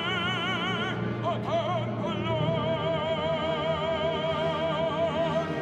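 Male operatic voice singing the closing phrase of a song. He holds a high note with wide vibrato, turns a short ornament about a second in, then sustains one long final note with vibrato to the end.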